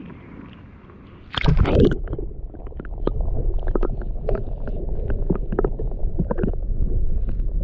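A splash about a second and a half in as the released Murray cod goes back into the water, then water sloshing and dripping around the kayak with a scatter of small knocks and a steady low wind rumble on the microphone.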